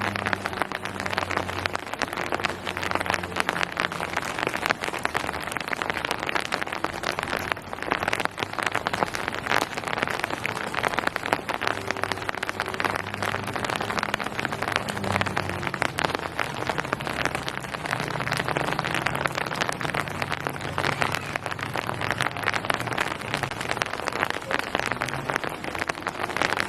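Steady rain falling on hard surfaces, a dense even patter of drops. A faint low hum comes and goes underneath.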